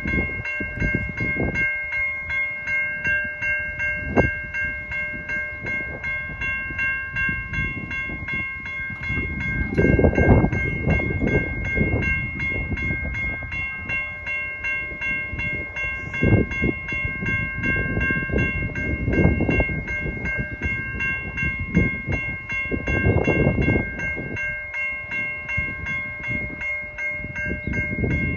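Railway level crossing warning bells ringing in a rapid, even beat, signalling that the crossing is closing for a train. A few louder rushes of noise come through now and then, the first about ten seconds in.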